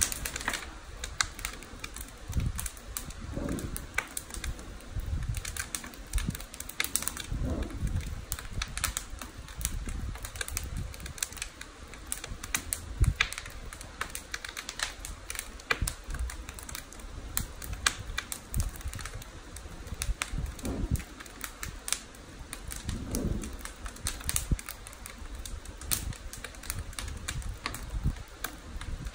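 Wood fire crackling and popping inside the stoking ports of a wood-fired climbing kiln (noborigama): dense, irregular sharp cracks, with a low rush swelling up every few seconds.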